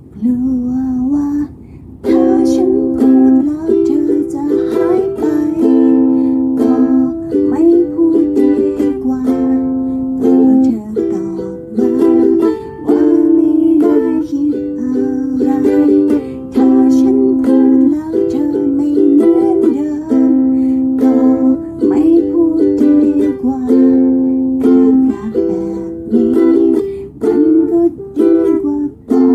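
Ukulele playing chords in a steady rhythm, soft for the first two seconds, then strummed fully.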